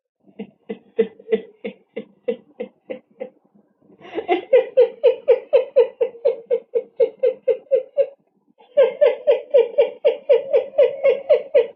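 A person laughing in long runs of quick, even "ha-ha-ha" pulses, about five a second: a quieter run first, then two louder runs.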